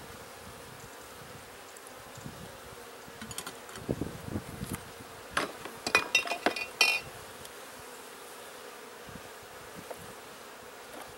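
Honeybees buzzing steadily around the hives, a constant thin hum. Between about four and seven seconds in, a quick run of clinks and knocks as equipment is handled, loudest near the end of that run.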